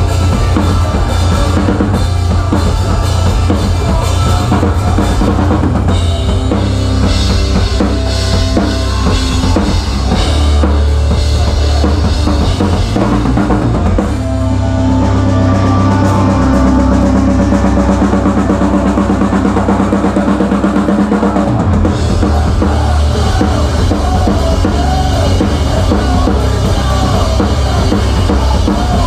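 Rock band playing live, heard close to the drum kit: kick drum, snare and Zildjian cymbals loud and upfront over guitars and bass. About fourteen seconds in, the cymbals thin out and held low notes carry the music for about eight seconds before the full beat comes back.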